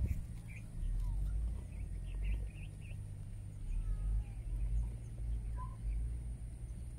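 Faint bird chirps, a few short calls about half a second in and again around two to three seconds in, over a steady low rumble, with a thin steady high-pitched whine throughout.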